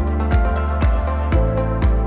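Background electronic music with a steady beat, about two beats a second, over held synth notes.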